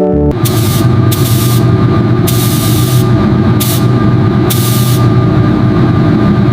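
Spray gun hissing in short on-off bursts, about five in a few seconds, over the steady hum of an air compressor, as primer is sprayed on.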